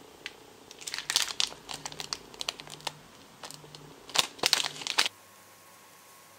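Plastic packets of Hearty lightweight modeling clay crinkling as they are handled, a run of crackles that starts about a second in and stops suddenly about five seconds in.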